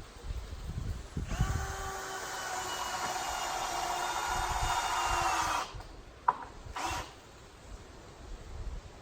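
Power drill running steadily for about four seconds, driving a screw into the wooden 2x4 boat frame, its pitch dropping slightly as it stops. A sharp click follows, then a second short burst of the drill.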